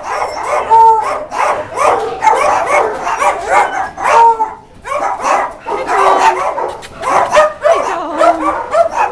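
Shelter dogs barking and yipping without let-up, several calls overlapping, with two sharp high yelps about one second and four seconds in.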